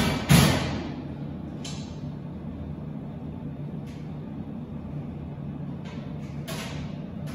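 Steady low hum of a refrigerated under-counter display case running, with a short loud hiss and bump just after the start and a couple of fainter hisses later.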